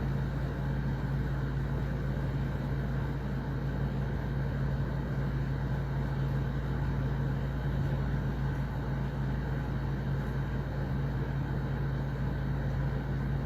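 A steady low machine hum with an even background noise, unchanging throughout.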